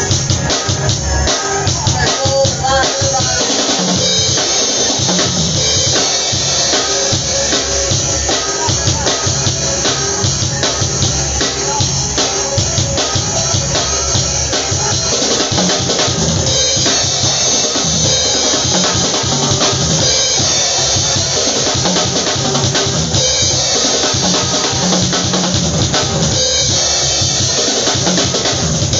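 Tama drum kit played without a break: kick drum, snare and cymbals in a steady groove.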